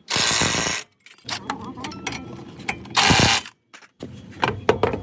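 Mechanic's tools at work: two short, loud bursts of a power or air tool, each under a second, with scattered ratchet clicks and knocks between them.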